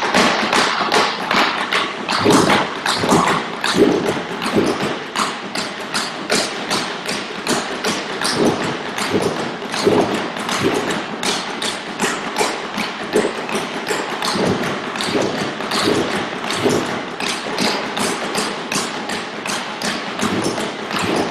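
Tap shoes striking a wooden tap board in a fast, continuous run of metal taps and heel drops, several a second, as a short tap pattern is danced over and over.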